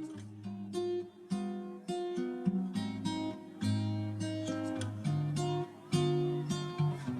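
Background music: acoustic guitar plucking and strumming chords over bass notes.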